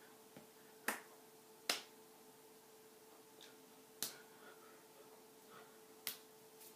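Hands striking each other while signing: five sharp taps, the loudest two in the first two seconds, over a faint steady hum.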